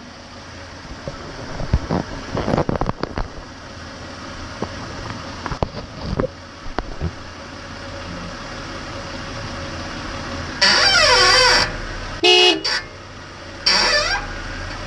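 A 1998 Toyota 4Runner makes an unexplained squeak: over a steady low running noise with scattered clicks, three loud high squeals come near the end, each wavering up and down in pitch and lasting about half a second to a second.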